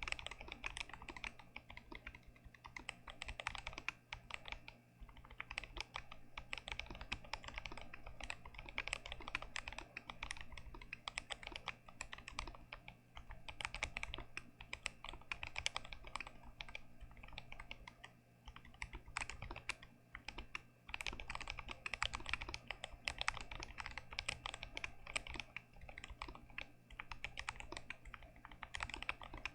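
Fast continuous typing on a GMMK Pro mechanical keyboard with Gazzew Boba U4T tactile switches: a dense run of keystroke clacks with a few brief pauses.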